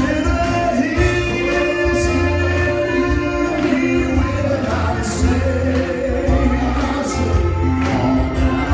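Two men singing a gospel song into handheld microphones, amplified through a PA, over musical accompaniment with a deep bass line and a steady beat.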